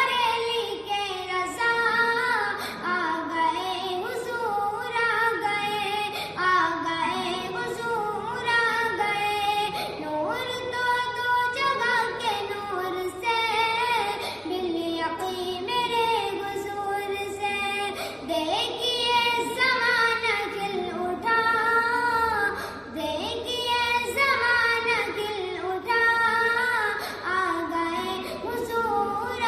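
A naat, an Islamic devotional song, sung by a high voice in a flowing, ornamented melody.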